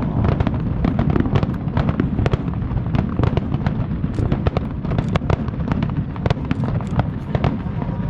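Fireworks going off in a rapid, dense barrage: many sharp bursts a second over a continuous rumble.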